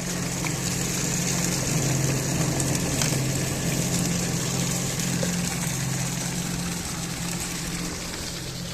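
Sugarcane crusher's engine running steadily, a low even drone with a high hiss over it.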